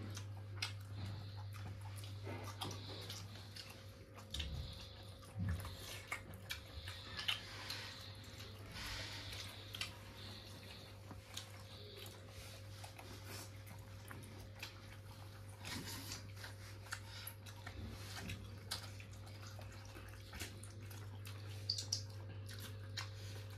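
People eating a meal of chicken curry with roti and rice: chewing, with many scattered small clicks and taps from the food and plates, over a steady low hum.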